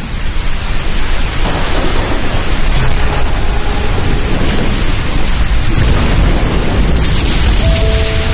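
Loud intro-animation sound effect: a dense, sustained rush of noise with heavy bass, with two brief steady tones near the end.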